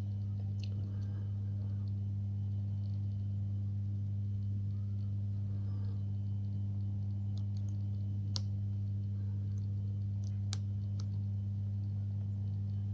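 Steady low hum throughout, with a few faint, sharp clicks of a hook pick working the pin tumblers of an Avocet ATK euro cylinder lock, the clearest about two-thirds of the way in.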